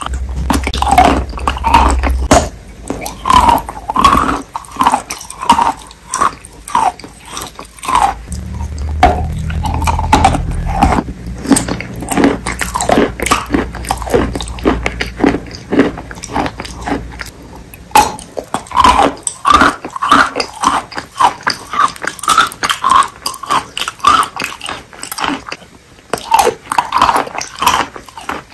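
Close-miked chewing of wet clay chalk paste: quick, irregular wet mouth clicks and smacks. A low rumble comes in underneath at the start and again from about eight to sixteen seconds in.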